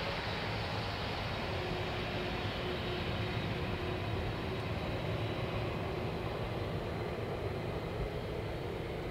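Jet engines of a twin-engine airliner taxiing at low thrust: a steady rumble and hiss with a faint high whine that fades a few seconds in as the aircraft moves away.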